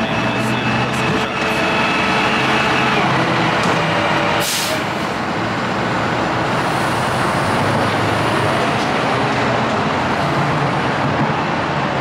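Heavy truck engine running steadily, with a short hiss of released air about four and a half seconds in.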